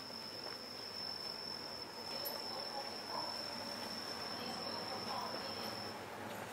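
A steady, high-pitched whine on one pitch, which stops shortly before the end, over low background hiss.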